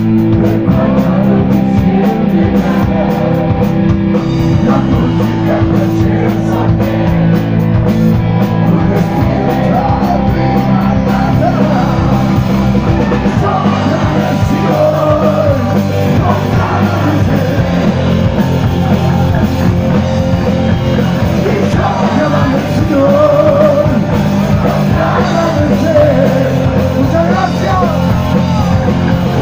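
Live rock band playing loud: electric guitar and drum kit, with a male vocalist singing.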